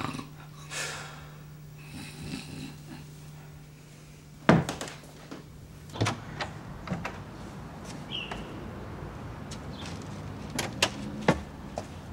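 A door being handled: a loud knock-like thud about four and a half seconds in, then a scatter of lighter knocks and clicks of a wooden door and its latch, with another cluster near the end.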